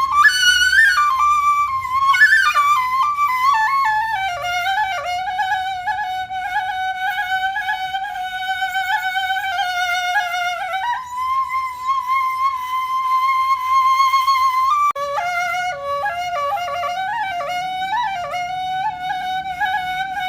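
Background music: a solo flute melody with quick ornamented runs and long held notes, breaking off briefly about fifteen seconds in.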